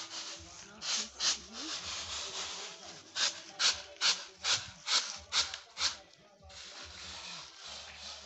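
Dried cowpeas shaken in a woven basket tray: a run of about eight rhythmic rattling swishes, a little over two a second, then a steady softer rustle as hands stir through the beans.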